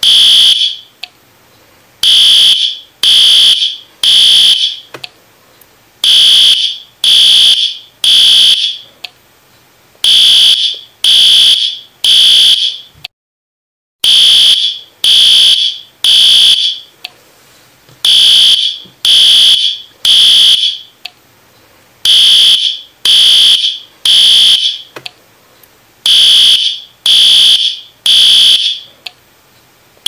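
Fire alarm sounding a high-pitched beep in groups of three, about one beep a second, with a pause of over a second between groups and the pattern repeating every four seconds: the temporal-three evacuation signal. The sound cuts out completely for about a second near the middle.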